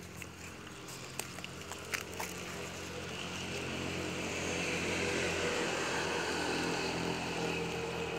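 A small engine running steadily, with a hiss that grows louder toward the middle; a few sharp clicks in the first two seconds.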